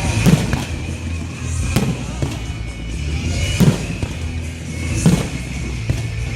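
Aerial fireworks exploding, a sharp bang about every second and a half, with music playing underneath.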